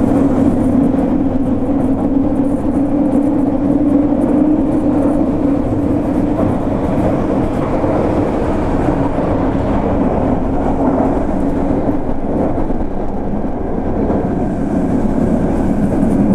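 Fukuoka City Subway Nanakuma Line linear-motor train running at speed through a tunnel, heard from inside the rear cab: a steady rumble of wheels on rail with a low hum underneath that drops a little in pitch after the first few seconds.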